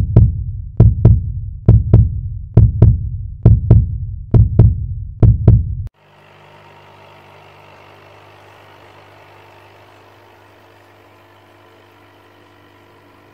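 Deep double thumps in a heartbeat-like rhythm, about one pair a second, for the first half. They stop abruptly and give way to the steady low hum of a running aquarium pump.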